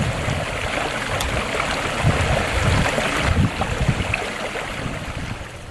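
Outdoor rushing noise with irregular low gusty rumbles, fading near the end.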